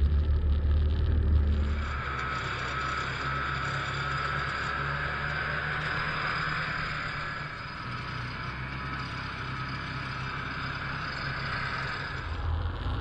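Single-cylinder two-stroke engine of a 1976 Ski-Doo Olympique 300M snowmobile running steadily while riding. About two seconds in, the deep low rumble drops away and a lighter, higher drone carries on until the deep rumble comes back near the end.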